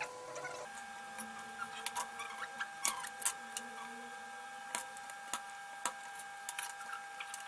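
Scattered small clicks and scratches of hand desoldering with soldering wick on a circuit board, over a steady high whine that steps up in pitch about a second in.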